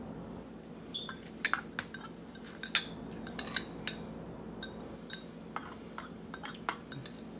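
Metal fork clinking and scraping against a ceramic bowl: a run of quick, sharp taps starting about a second in, some with a brief ringing tone.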